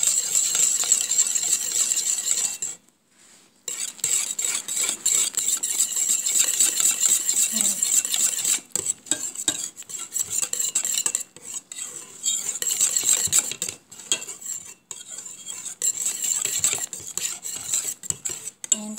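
A wire whisk stirring a thick cocoa sauce in a metal pot, scraping and clinking against the pot's sides in quick, uneven strokes, with a brief pause about three seconds in.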